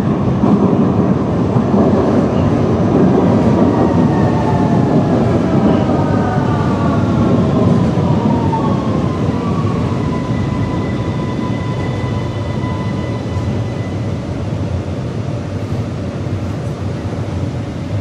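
Vienna U-Bahn metro train pulling into an underground station and braking to a stop. A loud rumble of wheels and running gear gradually eases, with a whine that falls in pitch over several seconds and then holds as a steady high tone once the train is nearly stopped.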